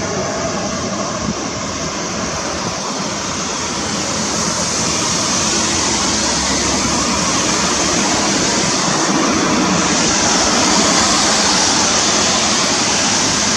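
Steady rushing of river water, an even roar that grows a little louder partway through.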